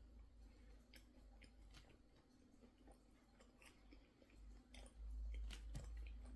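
Faint chewing of pizza, soft irregular clicks of the mouth at work, with a low rumble about five seconds in.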